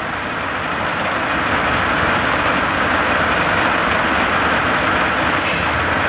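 A Frick No. 00 circular sawmill from around 1900 running, its large circular saw blade spinning with a steady whirring noise that builds slightly over the first second.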